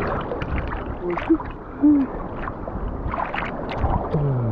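Sea water sloshing and splashing around people standing waist-deep in it, with a few short low vocal sounds and a falling voice near the end.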